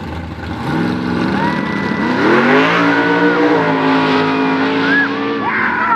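An old Chevrolet truck's engine accelerating hard away from a drag-strip start line. The note climbs in pitch over the first couple of seconds, then holds fairly steady as it pulls away down the track.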